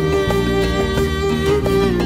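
Music: a held, slowly moving melody line over a steady beat and bass.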